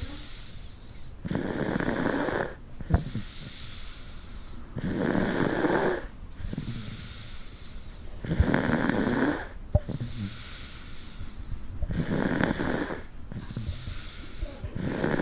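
A one-year-old child snoring hard in sleep, one snore about every three and a half to four seconds, each lasting a little over a second. There are two short, sharp clicks between the snores, about three and ten seconds in.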